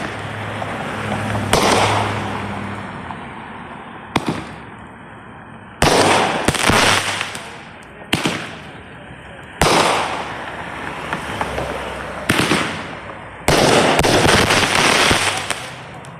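An 8-shot consumer firework cake firing, about eight loud bangs one to three seconds apart. Each bang is followed by a noisy tail a second or two long, and the last tail runs longest, about two seconds, near the end.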